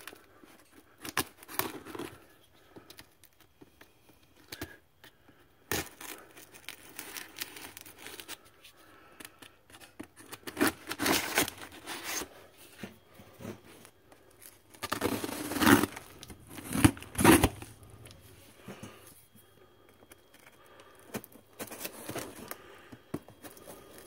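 A knife blade slitting packing tape on a cardboard box, with tape tearing and cardboard scraping and rustling in irregular bursts; the loudest bursts come about two-thirds of the way through.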